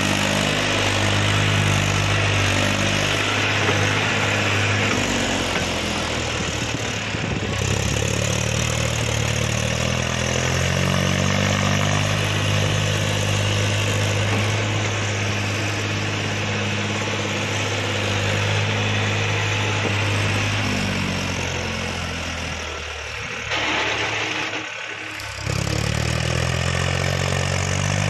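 Diesel tractor engine working under a full trolley load, its note rising and falling with the throttle. The sound drops away briefly and comes back a little before the end.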